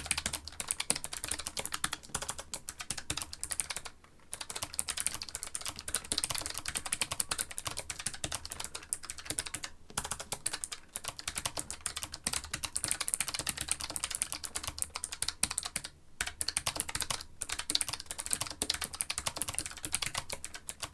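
Typing on a Keychron K1 Version 3 mechanical keyboard with yellow switches: a fast, continuous stream of key clicks, broken by a few short pauses.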